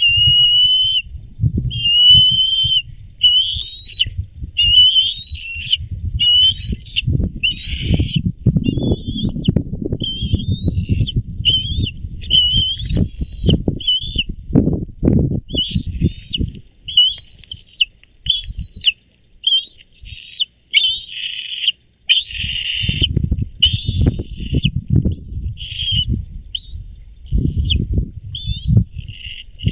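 Bald eagles calling at the nest: a long run of short, high whistled calls about one a second, many rising in pitch and some rougher. A low rumble comes and goes underneath.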